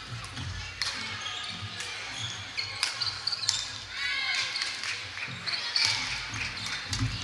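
Badminton rally: rackets striking the shuttlecock with sharp, short cracks, several times a few seconds apart. Between the hits, sports shoes squeak on the wooden court floor and footsteps thud, over a background of voices.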